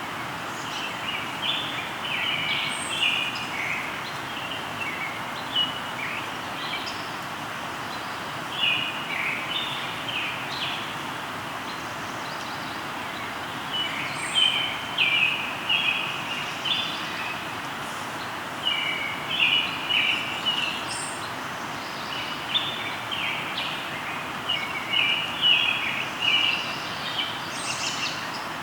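Songbirds singing in short bouts of quick, chirpy phrases, pausing for a few seconds between bouts, over the steady rush of a flowing river.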